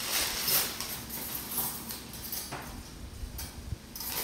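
Paper instrument wrap rustling and crinkling as it is handled, then a few light metallic clicks and taps of steel surgical instruments being set down on a towel.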